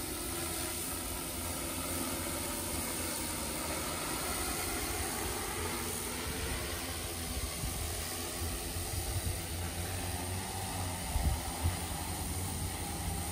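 Hexacopter drone with DJI E2000 motors and propellers hovering: a steady hum from its six propellers with several steady tones in it, and a few brief low rumbles near the end.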